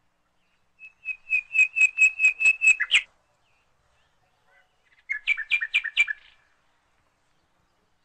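A bird calling in two quick runs of short, sharp chirps, about four a second: about ten notes in the first run, then after a pause of two seconds about half a dozen more.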